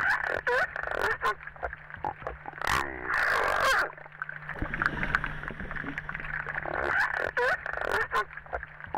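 Seals calling: short yelps that bend up and down in pitch, then a longer call about three seconds in, among scattered sharp clicks. The same run of calls starts again about seven seconds in.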